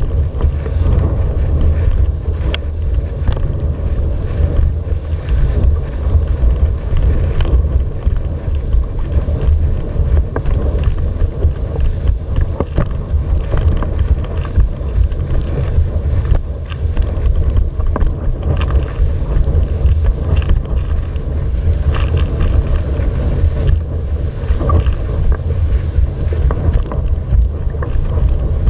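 Wind blowing hard across the microphone of a camera mounted on a windsurfer's boom, a loud steady low rumble, with water rushing under the board as it sails.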